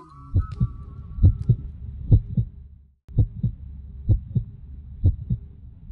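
Heartbeat sound effect: paired low thumps, about one pair a second, over a low hum, cutting out briefly about three seconds in. A whistled tone fades out during the first second or so.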